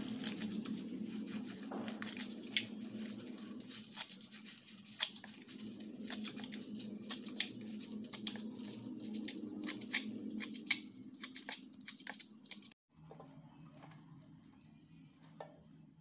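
Kitchen knife cutting through spring onion stalks on a wooden chopping board: irregular crisp cuts and knocks of the blade on the board, often several a second. The cutting stops about thirteen seconds in, leaving a faint steady hum.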